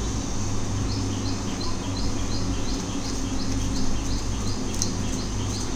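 A small bird chirping over and over, short high chirps about three a second, over a steady low hum.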